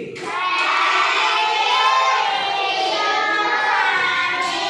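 A class of children's voices singing together in unison, with long drawn-out notes.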